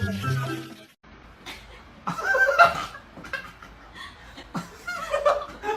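A few notes of music that cut off about a second in, then a person laughing in short bursts, loudest a couple of seconds in and again near the end.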